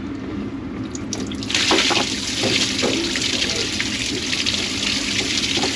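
Water from a tap running into a sink, turned on about a second and a half in and running on hard and steady: a test of whether the plugged grease-trap drain line will drain.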